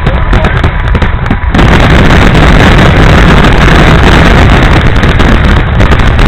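Fireworks going off in a rapid barrage: a few separate bangs at first, then from about a second and a half in so many bursts and crackles that they merge into one continuous din that overloads the microphone.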